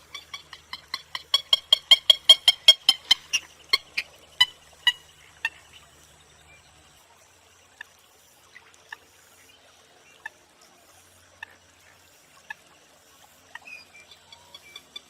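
Purple gallinule calling: a fast series of sharp clucking notes, about five a second, that builds to its loudest about two seconds in, then slows and trails off. Scattered single notes follow, and a new series starts near the end.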